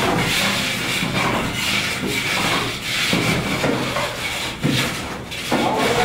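Irregular rough scraping strokes of a hand tool working a building mix in a bucket.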